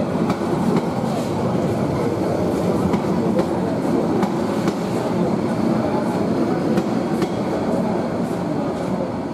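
Passenger coaches of the Mohanganj Express intercity train rolling steadily past close by: a continuous rumble of wheels on rail with scattered clicks as wheels cross the rail joints.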